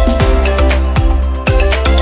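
Background music with a steady beat of deep kick-drum thumps over held bass and synth notes.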